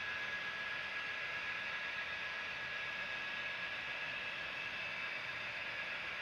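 HO scale model train running past on the layout: a steady rolling hiss of wheels on the track, with a faint high steady whine.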